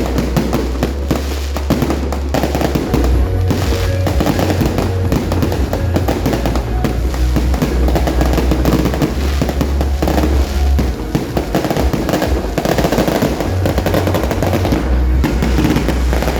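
Fireworks going off in a dense, continuous string of bangs and crackles, with music playing underneath.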